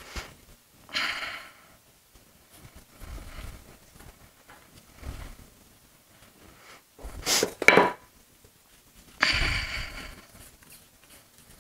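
Intermittent kitchen handling noises as dough is worked for the next batch of pirozhki: a few short rustling scrapes and soft thumps, with a sharper clattering brush about seven seconds in.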